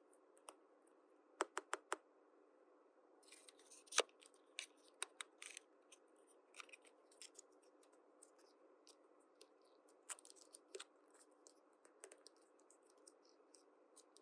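Small plastic toy pieces and packaging being handled: four quick clicks about a second and a half in, then scattered crinkly crackles and sharp clicks.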